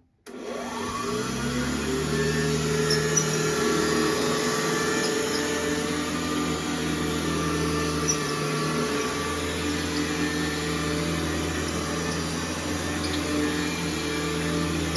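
Old Hoover Model 305 vacuum cleaner switched on: its motor starts suddenly, winds up in pitch over the first second or two, then runs at a steady hum.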